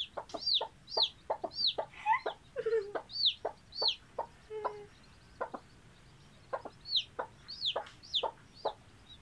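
Newly hatched chick peeping: a run of high chirps, each falling in pitch, with a lull about halfway through, mixed with many short, sharp clucks.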